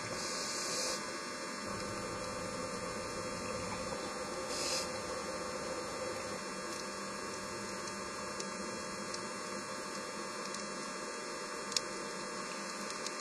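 A steady hum made of several even tones. Short bursts of hiss come at the very start and again about four and a half seconds in, and there are two faint clicks near the end.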